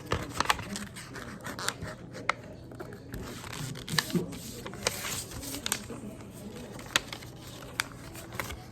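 A sheet of paper being folded and creased by hand: rustling with scattered short, crisp crackles.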